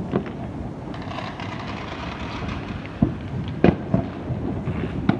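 Aerial fireworks going off: an unbroken rumble and crackle with several sharper bangs standing out, two of them close together a little past the middle.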